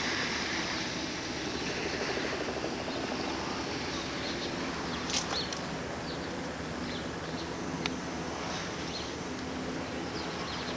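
Steady outdoor background rumble, with several short, high bird chirps through the middle.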